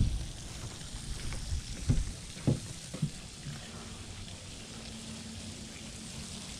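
A few dull footsteps on wooden deck boards in the first three seconds, over a steady outdoor hiss.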